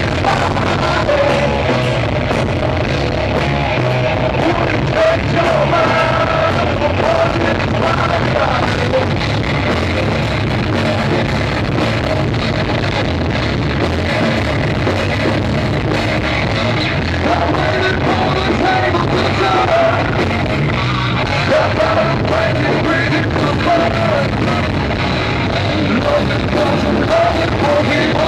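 A live rock band playing at full volume: electric guitars and drums with a vocalist singing into a microphone.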